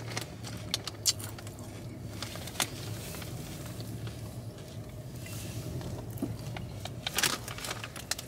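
Steady low hum of a car on the road, heard from inside the cabin. A few sharp clicks and crackles sound over it, with a dense cluster of them near the end.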